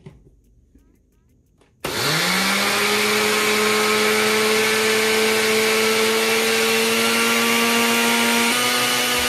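An Oster countertop blender is switched on about two seconds in. Its motor spins up quickly, then runs steadily at high speed, grinding dry oats into flour. Near the end its pitch steps down slightly.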